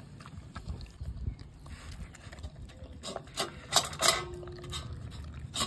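Dog eating wet raw food from a stainless steel bowl: steady chewing and lapping, with the metal bowl clanking several times in the second half, loudest about four seconds in, as it licks the bowl nearly empty.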